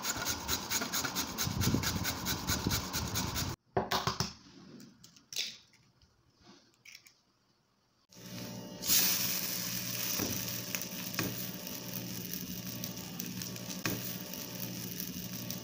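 A carrot rubbed fast against a stainless-steel box grater, a rapid rasping that lasts about three and a half seconds. Then a few soft clicks and taps, and from about eight seconds in a steady sizzle of carrot-and-egg pancake batter frying in a pan, with a low hum under it.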